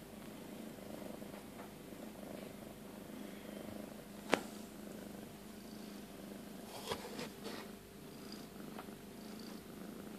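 Tabby cat purring steadily while in labour. A sharp click cuts in about four seconds in, and there is a brief rustle around seven seconds.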